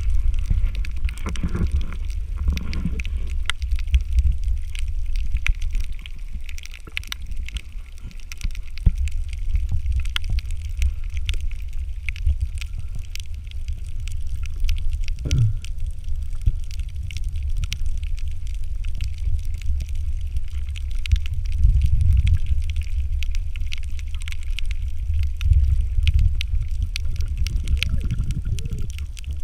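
Underwater sound through a camera's waterproof case: a muffled low rumble of moving water with dense fine crackling clicks over it.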